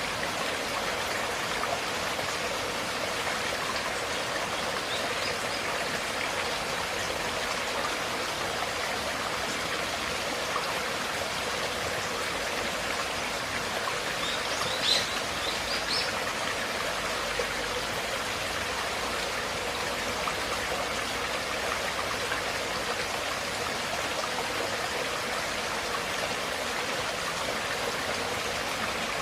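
River or stream water flowing steadily, a continuous rushing and trickling. About halfway through there is a brief, sharper, higher sound that stands out over the flow.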